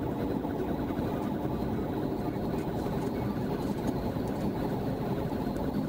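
Steady road and engine noise inside a car cruising at highway speed.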